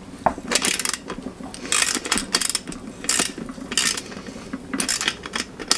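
Socket ratchet clicking in short, uneven bursts, several a second, as the handle is swung back and forth on a 17mm socket, working a sealant-locked fitting on the steel lid of a paint pressure tank.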